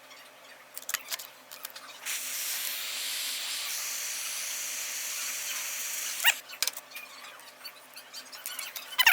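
Small gas soldering torch hissing steadily for about four seconds as it heats a chain link for soldering, starting and stopping abruptly. Light clicks and short squeaks come before and after it.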